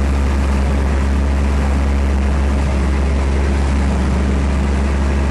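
Fishing boat's engine running steadily, a loud, constant low drone.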